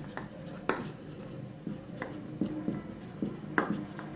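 Marker writing on a whiteboard: scratchy strokes with several sharp taps as the tip meets the board.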